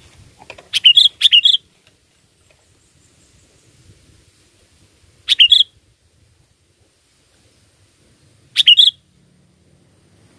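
Sooty-headed bulbul (kutilang) calling in short, loud whistled phrases. Two come close together about a second in, one about five seconds in and one more near the end, with quiet gaps between.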